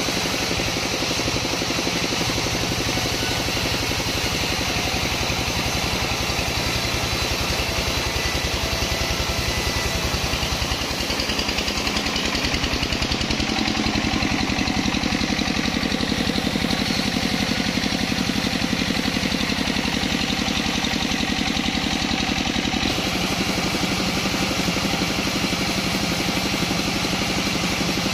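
Engine of a sawmill saw machine running steadily with a regular firing rhythm; its note shifts about twelve seconds in and again near twenty-three seconds.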